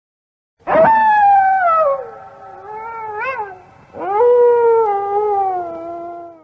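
An animal's call: two long, drawn-out cries, each starting high and sliding down in pitch.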